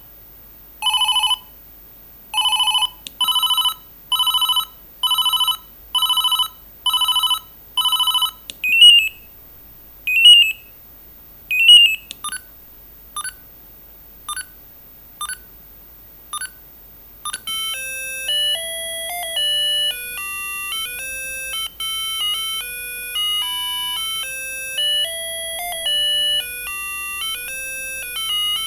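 Siemens A55 mobile phone playing one built-in ringtone after another. First comes a run of short repeated electronic beeps, then three short chirps, then single blips about a second apart. Over the last third a ringtone melody of electronic tones plays.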